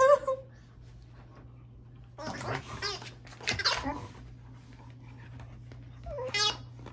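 Dog making unusual warbling, whining vocalizations in three bouts: one at the very start, a longer one about two to four seconds in, and a short one near the end.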